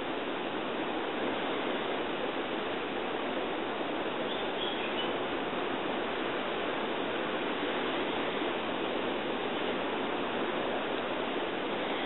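Steady, even background hiss like rushing water, with a faint short high chirp about four and a half seconds in.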